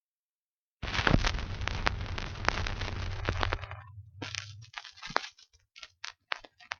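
Surface noise from a 1950 BBC 78 rpm acetate disc being played, before the recorded programme starts. About a second in, hiss and low rumble with crackles set in; after three to four seconds this thins to scattered clicks and pops.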